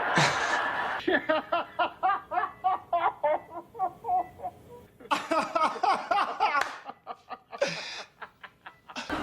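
Hearty human laughter in rapid repeated bursts, about four a second, breaking off briefly about halfway through and then starting again.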